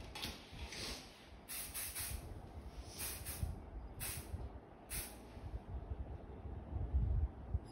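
Aerosol hairspray can sprayed in about five short hissing blasts over the first five seconds, with a dull low bump near the end.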